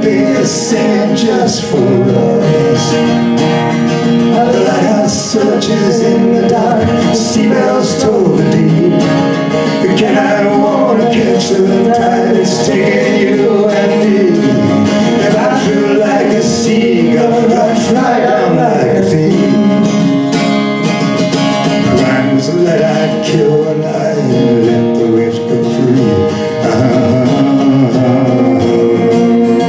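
Live acoustic folk music: a steel-string acoustic guitar strumming under singing, with a violin played near the end.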